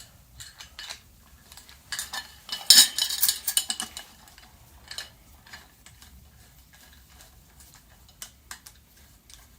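Metal fork parts of an Izh motorcycle clinking and rattling as the hydraulic damper cylinder is turned inside the fork leg to seat its locating pin in the hole. A loud flurry of clatter comes about three seconds in, then scattered light clicks.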